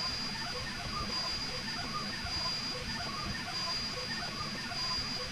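A delta 3D printer printing: its stepper motors sound short tones that keep changing pitch as the head moves, over a steady high whine and hiss.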